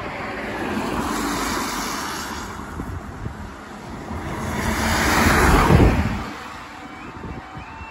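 Road vehicles passing on a wet road, their tyre noise swelling and fading twice, the second pass the louder near the end. Just after, a level crossing's warning alarm starts faintly with a stepped, two-tone electronic sound as the amber lights come on.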